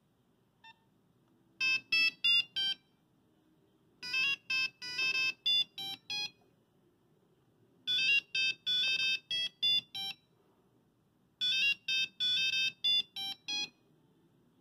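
Nokia 5110 monophonic ringtone playing a short melody of quick, pitched electronic beeps, repeated in four phrases with pauses between them. A faint single beep comes just before the first phrase.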